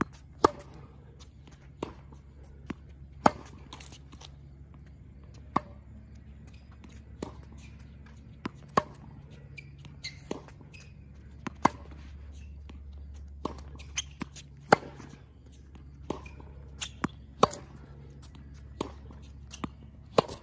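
Tennis racket striking the ball on forehand groundstrokes: a sharp pop every second or two, unevenly spaced, over a steady low hum.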